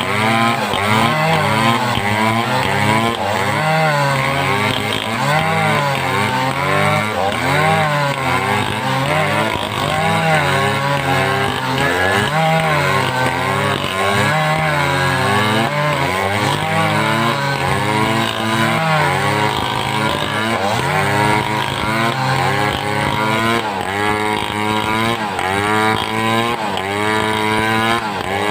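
Home-assembled two-stroke chainsaw running hard while cutting timber, its engine pitch rising and falling over and over as the chain bites into the wood and frees up.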